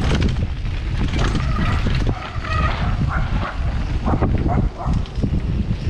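Wind buffeting the microphone and the knocks and rattles of a bicycle riding over rough trail, with a few brief high-pitched squeals or cries about two seconds in.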